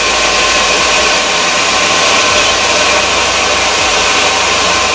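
A loud, steady whooshing machine noise with a faint whine running through it, cutting off abruptly near the end.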